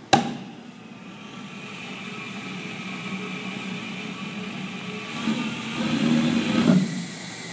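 Homemade propane-fed small jet engine being started: a sharp click, then a steady whir that slowly grows louder, with rough, louder rumbling from about five seconds in that drops away just before seven seconds.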